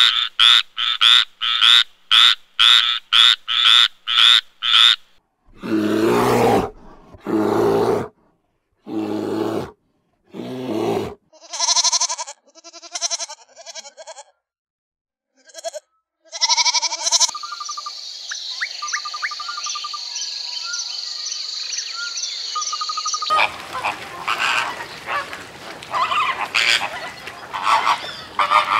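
A frog croaking in a fast run of short calls for about five seconds. A goat then bleats several times, and near the end a flock of flamingos calls together.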